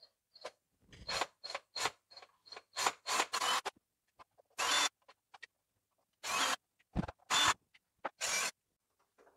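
Cordless drill-driver run in short bursts as it backs screws out of a power supply's steel cover. A quick series of brief trigger pulses comes first, then a few longer runs of about half a second each.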